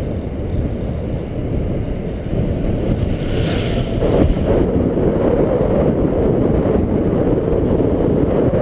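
Wind buffeting a small action camera's microphone: a steady, low rumbling roar that grows a little louder about four seconds in.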